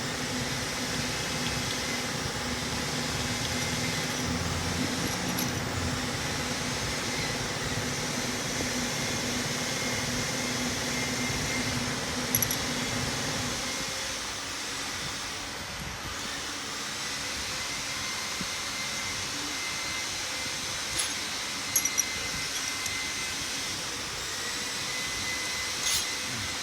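Steady whirring machine noise. Its deeper part stops suddenly about halfway through, leaving a lighter hiss, with a few short clicks.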